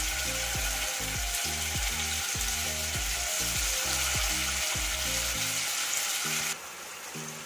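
Marinated boneless chicken pieces sizzling in hot sunflower oil in a pan as more pieces are dropped in, over background music. The sizzling cuts off abruptly near the end.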